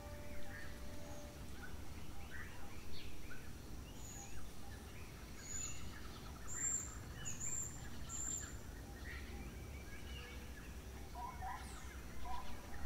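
Birds chirping and calling over a low steady background rumble, with a run of four or five short, high whistled notes in the middle and lower repeated calls near the end.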